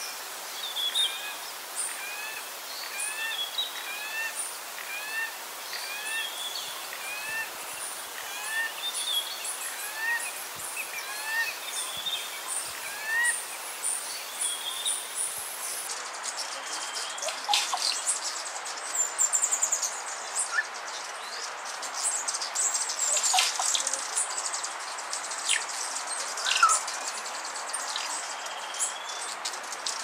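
Wild birds calling in forest. For the first half, a bird repeats rising whistled notes, about two a second. After an abrupt change about halfway through, a denser mix of high chirps and sharp calls takes over.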